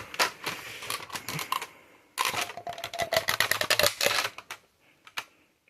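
Plastic parts of a home-built spring-powered Nerf blaster clicking and rattling as its plunger mechanism is worked by hand, in two bursts of rapid clicks followed by a few single clicks. A faint falling squeak runs through the second burst.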